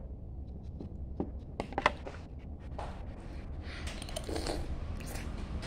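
Scattered light clicks and taps of food and dishes being handled while eating, the loudest a pair of sharp clicks a little under two seconds in, over a low steady hum.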